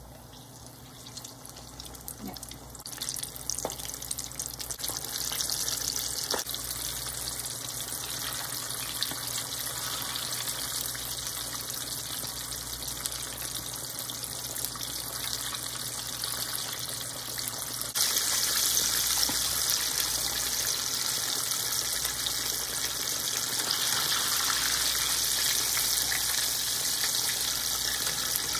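Flour-coated chicken wings deep-frying in hot oil in a pot: a steady sizzling hiss that builds over the first few seconds and gets louder about two-thirds of the way through.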